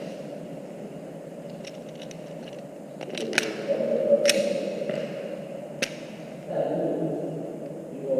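A few sharp single clicks and light ticks, spread over several seconds between airsoft pistol shots, typical of the pistol being handled.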